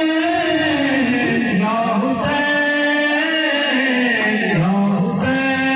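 Male voice chanting a noha, a Shia lament for Hussain, in long held notes that slide down at the end of each phrase, without instruments. Two sharp strikes cut through about two and five seconds in.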